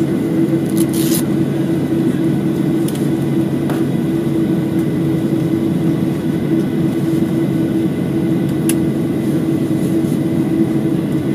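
Steady drone of an airliner taxiing after landing, heard from inside the cabin: engines at idle and cabin air with a constant hum. There are a few small clicks, one about a second in.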